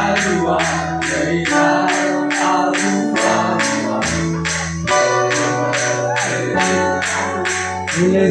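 Music with a steady beat of sharp percussion strokes, about three a second, over held bass and keyboard notes that change every second or so. A voice comes in near the end.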